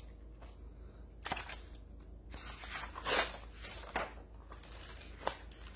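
A picture book being opened and its pages turned: a string of soft paper rustles and crinkles, busiest in the middle, with one sharper crinkle near the end.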